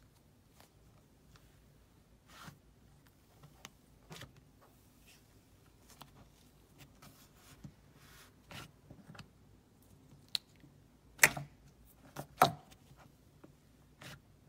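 Thick creamy clay slime being kneaded and poked by hand: scattered soft sticky crackles at irregular moments, with two louder pops near the end.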